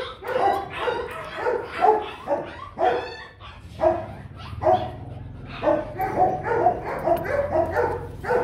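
Rottweiler barking in a quick, steady run of short barks, about three a second: play barking while it is roughhoused.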